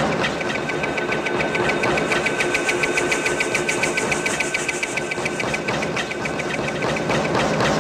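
A running machine: a fast, even mechanical clatter over a steady whine.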